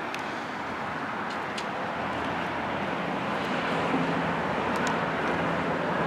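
Road traffic noise that grows gradually louder, with the low hum of a passing vehicle's engine joining about halfway through.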